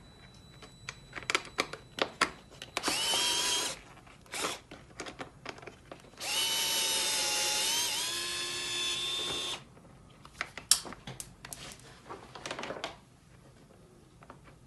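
Cordless drill-driver backing out bolts: a short run of its motor whine, then a longer one of about three and a half seconds that dips slightly in pitch partway through. Clicks and clinks of tools and hardware fall between the runs.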